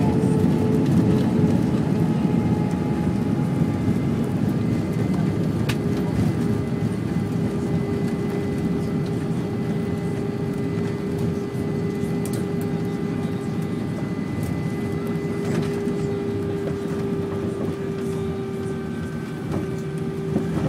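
Jet airliner cabin noise during the landing rollout: a steady roar of engines and rushing air with a droning hum, slowly dying away as the aircraft slows on the runway with its spoilers raised.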